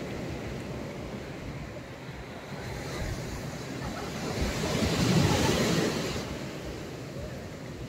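Sea waves washing in, with wind buffeting the phone's microphone; the wash swells up about five seconds in, then eases.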